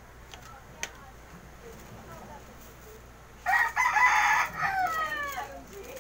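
A rooster crows once: a loud call of about two seconds that starts a little past halfway and falls in pitch at the end.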